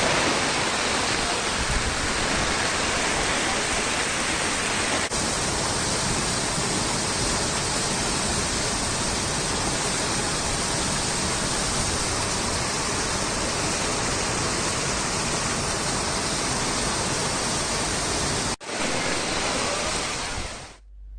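Fast-flowing floodwater rushing: a steady, even noise of torrential water, changing abruptly about five seconds in, briefly dropping out near the end and then fading.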